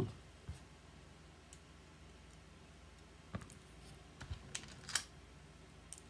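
A few small, sharp metal clicks and taps of a precision screwdriver and Torx bits being handled and fitted to a folding knife's pivot screw. The clicks are scattered at first, then come in a quick cluster about three to five seconds in.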